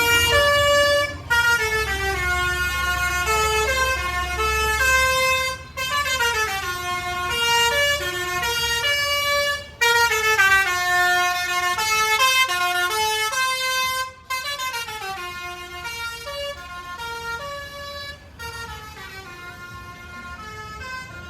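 Telolet basuri multi-tone bus horn playing a melody in stepped notes, in phrases broken by short gaps about every four seconds. A low rumble sits under the first few seconds, and the horn grows fainter over the last several seconds.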